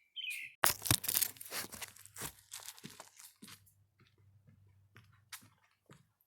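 Rustling, crinkling and tearing noises, like something being rummaged through and ripped open: a dense run of sharp crackles loudest about a second in, then scattered crackles that thin out.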